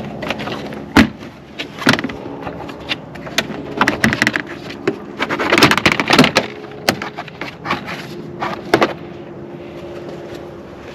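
Irregular clicks and knocks of hand tools and parts being handled while working on a car to reach its battery cable, thickest in the middle, over a steady low hum.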